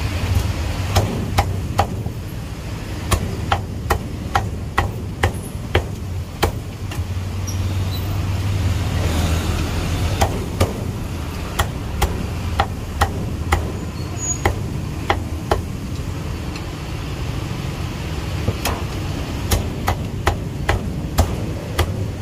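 Cleaver chopping roast duck on a thick round chopping block: sharp chops in runs of several, about two or three a second, with short pauses between runs.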